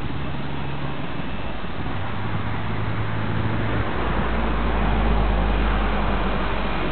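450-size radio-controlled helicopter in flight, its rotor and motor making a steady low buzzing hum that grows louder from about four seconds in as it passes close, then eases off near the end.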